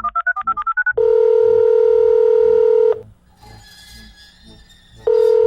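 Telephone call being placed: a quick run of about eight touch-tone keypad beeps, then the ringing tone on the line, one ring lasting about two seconds, a pause, and the next ring starting near the end.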